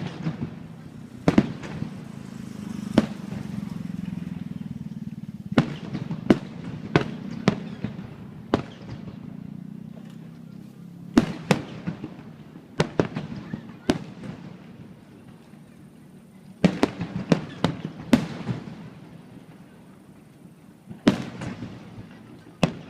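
Fireworks shells bursting overhead: sharp bangs and crackles in quick clusters every few seconds, over a steady background hum.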